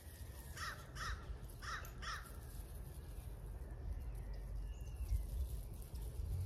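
A bird calling outdoors: four short arched calls in two pairs, starting just over half a second in, over a steady low rumble.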